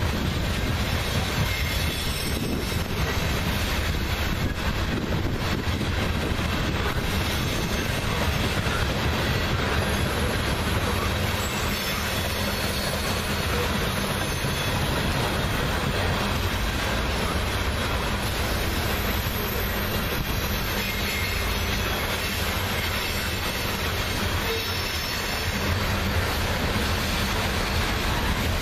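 Loaded coal hopper cars of a Union Pacific coal train rolling past steadily, a continuous rumble of steel wheels on rail with faint high wheel squeal.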